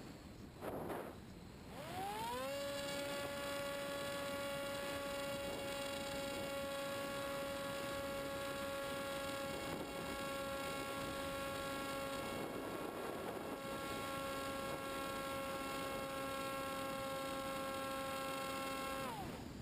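Electric motor and propeller of a Multiplex EZ Star RC plane spooling up about two seconds in to a steady high whine, held through the climb, then throttled back near the end.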